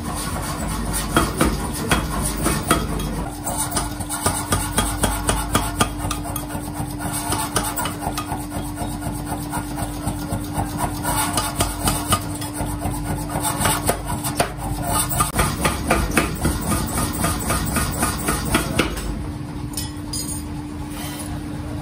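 Repeated hammer blows on a red-hot steel axe head, about two a second, over the steady hum of a running machine. The blows and the hum stop shortly before the end.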